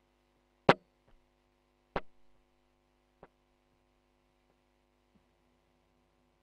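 Low mains hum through an electric guitar's signal chain, a Fender Stratocaster run into a DAW, with no notes played; three sharp clicks come about a second and a quarter apart, the first the loudest.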